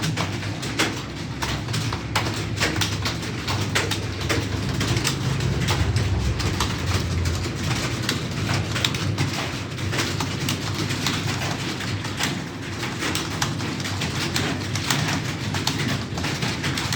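Computer keyboard typing: rapid, irregular key clicks, several a second, over a steady low rumble.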